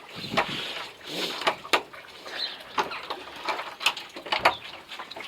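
Irregular knocks and clicks of a house door being opened and someone stepping into the entrance hall.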